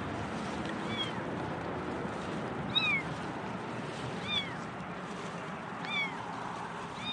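Hidden kitten meowing in distress: four short, high cries, one about every second and a half, over a steady background hiss.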